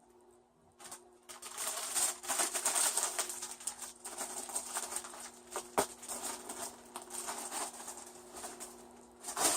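Plastic bag crinkling and rustling as it is handled, with a sharp click a little past the middle and a louder knock near the end.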